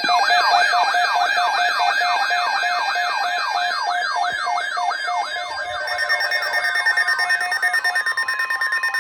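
Electronic emergency alert tone: a siren-like sound made of rapidly repeated falling sweeps, about three a second, over steady held tones. It starts abruptly, and the sweeps grow fainter and more pulsing over the last few seconds.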